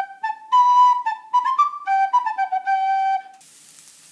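A short instrumental tune of quick stepped notes that stops abruptly about three and a half seconds in. The steady hiss of onions and chilli sizzling in hot oil in a frying pan then takes over.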